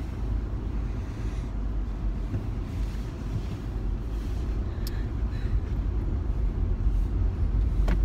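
Steady low rumble of a car driving, heard inside the cabin, with a sharp click about five seconds in and another near the end.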